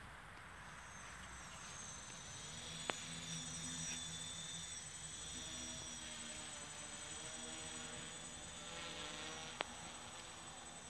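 Faint buzzing of a small F330 quadcopter's four brushless outrunner motors and 8x4.5 propellers in flight, its pitch wavering up and down as the throttle changes. Two sharp clicks, one about three seconds in and one near the end.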